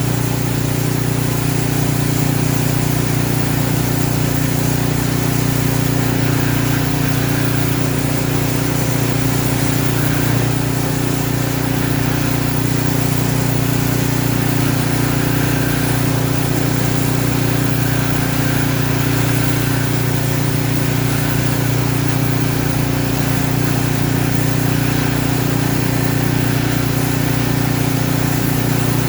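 Snowblower engine running steadily at an even speed.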